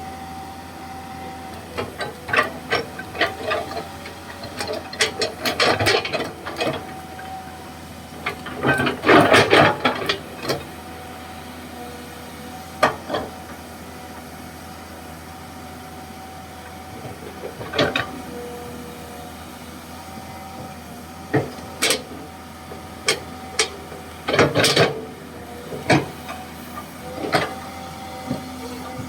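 Komatsu PC200-6 hydraulic excavator at work: a steady engine hum with a few constant tones underneath, broken by frequent sharp clanks and knocks and several louder bursts of scraping and rattling.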